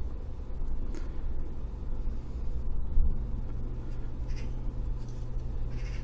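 Faint scuffs and rubbing of fingers handling a small printed circuit board as it is turned over, a few light brushes over a steady low hum.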